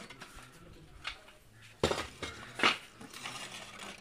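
Clay roof tiles clinking and clattering as they are lifted and shifted by hand, with two sharp knocks about two seconds in.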